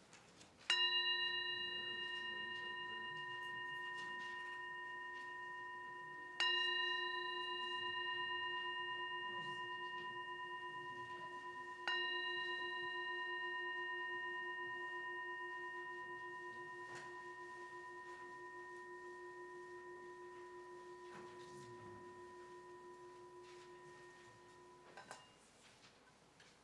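Metal singing bowl struck three times with a mallet, about five and a half seconds apart, each strike renewing a steady ringing tone that fades slowly. The ringing is cut off near the end as the bowl is damped by hand. It is rung to open the service, just before the welcome.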